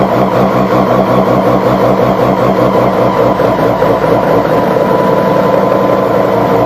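Mazda 13B bridgeported rotary engine running on its first startup with a lumpy, pulsing idle. The pulsing evens out and quickens about five seconds in.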